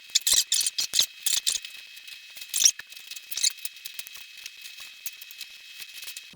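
Plastic packaging crinkling and snapping as it is pulled and torn off a new bike: sharp, irregular crackles, thickest in the first three and a half seconds, then sparse.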